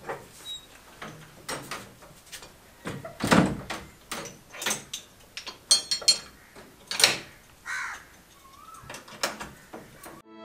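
Knocking by hand on a wooden lattice door: irregular raps, some much louder than others, spaced a second or more apart.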